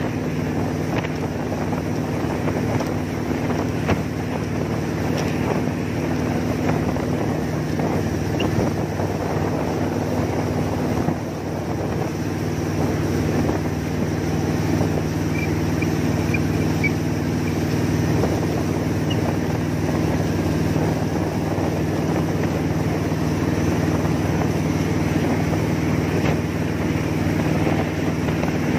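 Jet boat engine running with a steady drone, with wind buffeting the microphone.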